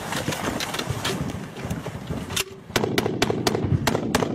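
Small-arms gunfire in a firefight. There are scattered shots for the first couple of seconds, then a short lull. From about three seconds in comes a steady string of shots, about four or five a second, like automatic machine-gun fire.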